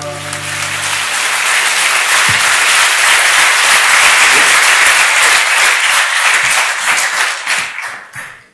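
A large audience applauding, swelling over the first few seconds as the last held music notes die away. It thins to scattered claps and stops near the end.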